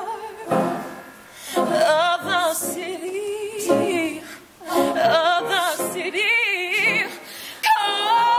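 A solo female voice singing a slow spiritual with heavy vibrato, in long held phrases broken by short breaths.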